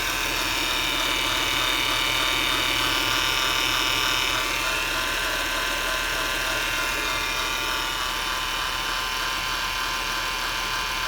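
Whine from a 2007 Acura TL: a steady mechanical whine of several high tones over a fast, fine ticking rattle. The whine eases a little about four seconds in.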